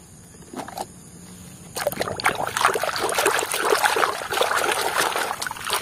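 Water sloshing and splashing in a basin as a hand swishes mud-covered toys through it to wash them, starting about two seconds in and going on irregularly.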